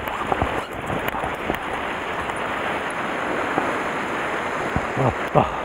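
Sea surf breaking and washing over the shore rocks: a steady rush of water.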